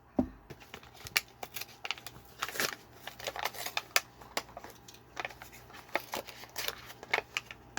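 Cardboard and plastic packaging of a boxed diecast toy car being handled and opened: an irregular run of sharp clicks, snaps and short rustles, a few a second, with the loudest snap about four seconds in.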